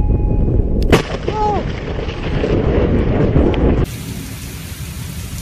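A close lightning strike: a sharp thunder crack about a second in, with a brief shout just after, followed by heavy low rumbling thunder. Near the end this cuts to a softer, steady rumble with hiss.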